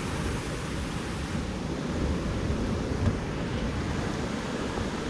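Steady rush of a waterfall's falling water, with wind buffeting the microphone.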